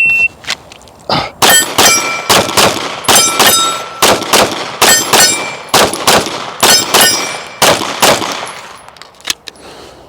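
Shot timer's start beep cut short by a rapid string of about twenty 9 mm pistol shots from a Glock 45 with an aftermarket slide and bull barrel, fired over about eight seconds. A steel target rings with a clear tone between shots.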